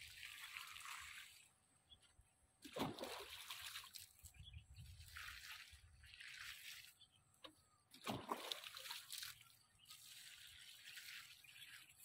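Hand-watering of vegetable plants: water splashing onto the plants in repeated pours about a second long, with a sharp slosh about three seconds in and another about eight seconds in.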